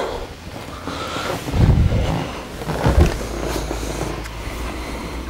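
IBM 5140 PC Convertible starting up after power-on, with a steady low mechanical whir and two heavier knocks about a second and a half and three seconds in, as the RAM count begins to show.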